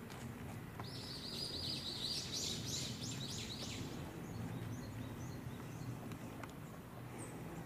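A small songbird singing one fast, high-pitched trill of repeated notes lasting about three seconds, starting about a second in, with a few faint high chirps near the end, over a steady low outdoor background hum.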